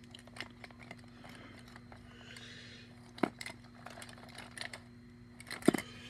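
Plastic disposable lighters clicking and clacking against each other as a hand sorts through a plastic bin of them, with a louder knock about three seconds in and another near the end, over a faint steady hum.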